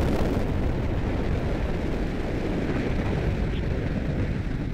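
Atlas V rocket's RD-180 first-stage engine firing seconds after liftoff: a loud, steady, deep rumbling roar of rocket exhaust with no solid boosters.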